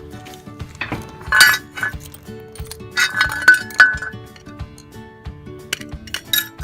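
A screwdriver and small metal parts clinking and tapping as screws are driven back into a lawnmower's drive assembly, with louder ringing clinks about a second and a half in, again around three to four seconds in, and near the end.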